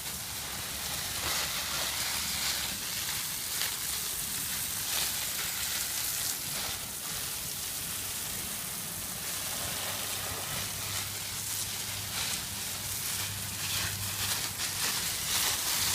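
Steady hiss of water: a garden hose spraying onto burning brush, mixed with falling rain.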